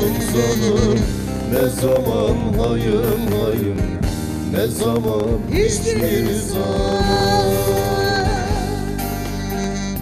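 A man singing a Turkish folk song (türkü) in an ornamented, wavering voice, accompanied by the bağlama, a long-necked plucked saz, that he plays himself.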